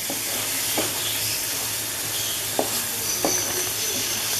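Carrot halwa sizzling in ghee in a pan while a spoon stirs through it, with a few short scrapes of the spoon against the pan. The milk has fully boiled off and the halwa is nearly cooked.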